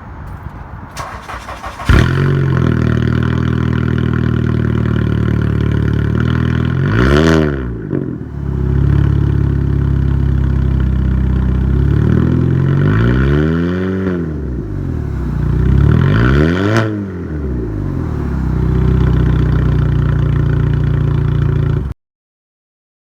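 A 2008 VW Golf City's 2.0-litre four-cylinder engine, fitted with a 2.5-inch exhaust, starts about two seconds in and idles. It is blipped three times, a short rev, a longer one, then another short one, settling back to idle each time. The sound cuts off abruptly near the end.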